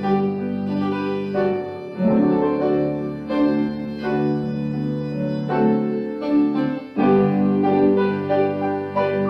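Organ and piano playing a hymn instrumentally in slow, sustained chords, with new chords struck about two seconds in and again about seven seconds in.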